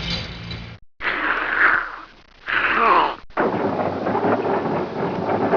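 A run of vintage cartoon sound-effect stingers cut one after another: a short noisy effect about a second in, a falling pitch glide near three seconds in, then a longer rough, noisy effect after a brief silent cut.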